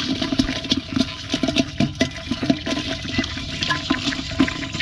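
Freshly caught live fish flapping and splashing in a shallow tub of water among crabs: a busy, irregular wet slapping and splashing, over a steady low hum.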